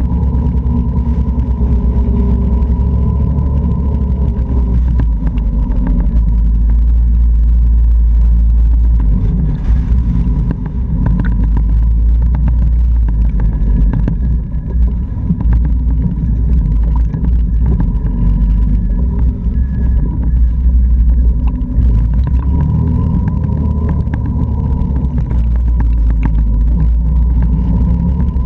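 Can-Am Outlander 650 ATV's V-twin engine running under way over gravel, its pitch rising and falling with the throttle near the start and again about three-quarters through, over a heavy low rumble.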